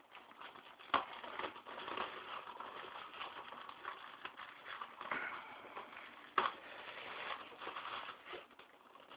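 Plastic shrink-wrap being torn and crinkled off a DVD case, a continuous crackling with two sharper snaps, one about a second in and one past the six-second mark.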